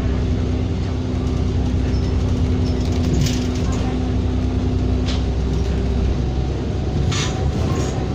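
Bus engine and road noise heard from inside the moving bus: a steady low rumble with a steady hum that drops out about six seconds in, and a few short hissing sounds.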